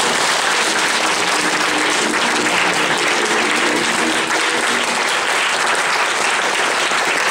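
Crowd of a few dozen people applauding steadily after a dance.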